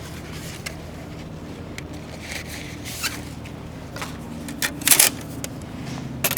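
A series of scattered clicks and knocks, the loudest a close pair about five seconds in, over a steady low hum.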